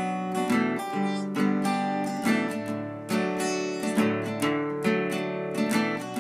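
Acoustic guitar playing strummed chords in a steady rhythm, each chord ringing on into the next, with no singing.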